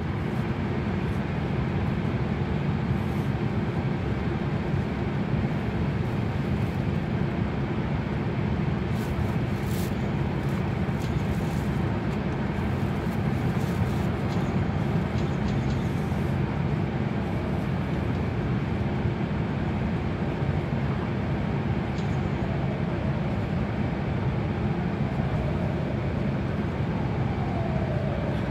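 Steady low rumble of a car's tyres and engine, heard from inside the cabin while driving through a road tunnel. A few faint falling tones come in near the end.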